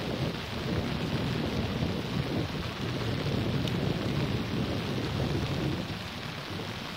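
Uneven low rumble of wind buffeting the microphone, easing a little near the end.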